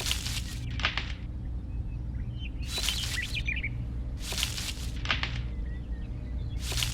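Birds chirping over a steady low hum, with short sharp hissing bursts repeating every second or so.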